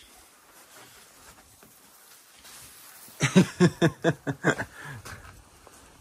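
A voice making a quick run of short, loud syllables a little past halfway through, after a few quiet seconds.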